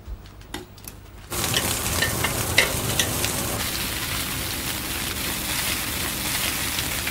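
Meat sizzling on a hot barbecue, a dense hiss with small crackling pops that starts suddenly about a second in, after a few faint clicks.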